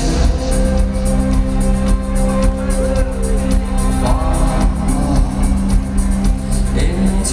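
Live rock band playing in an arena, heard from the audience, with held bass and keyboard notes under a steady drum beat.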